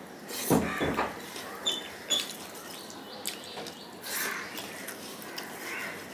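Mouth sounds of a person eating rice and curry by hand: wet chewing and lip-smacking clicks, loudest about half a second in, with short clicks scattered after. Faint bird calls in the background.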